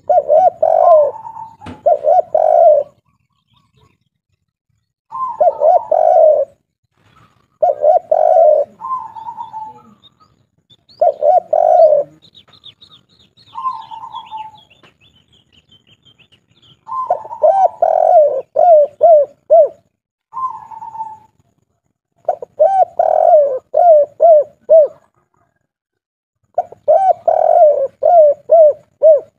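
Spotted dove (tekukur) of the 'kuk 3' song type cooing loudly in repeated phrases a few seconds apart, several of them ending in a quick run of short coos. A faint high twittering of a small bird comes in around the middle.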